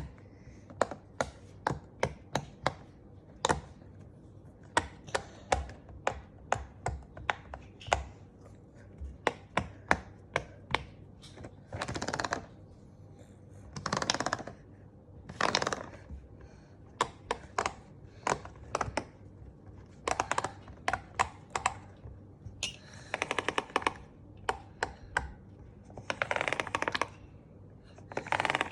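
Silicone Pop It fidget toy having its bubbles pressed: sharp pops one at a time, a few a second, broken up by quick runs of pops lasting about a second.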